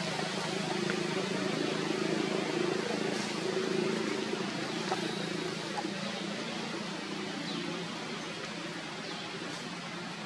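Steady outdoor background noise: a low, even hum under a hiss, with a few faint clicks and faint high chirps scattered through.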